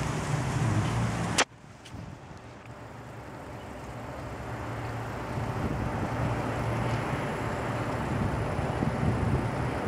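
Steady outdoor background rumble, with a sharp click about a second and a half in, after which the sound drops away and slowly builds back up.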